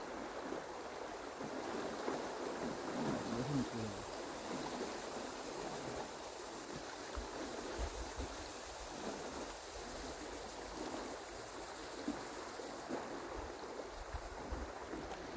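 River water running steadily, an even rushing hiss.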